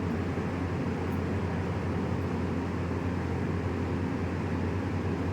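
Steady low mechanical hum with an even background rush, unchanging throughout; no distinct crack or click of a joint is heard.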